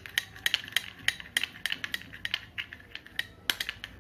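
A spoon clinking against a small bowl while stirring honey into ginger juice: a quick, uneven run of light clinks, several a second.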